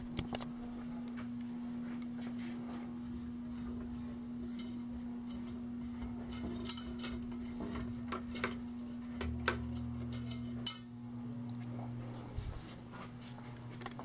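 Ceiling fan motors running with a steady hum. A scatter of sharp clicks and light clinks comes through the middle, and a deeper hum comes in about nine seconds in.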